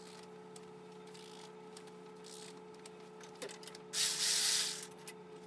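A short, loud spray hiss lasting under a second, about four seconds in, over a steady background hum, with a few light clicks before it.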